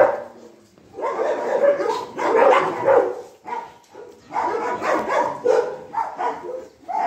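Several dogs playing rough and barking, in bursts of about a second with short pauses between.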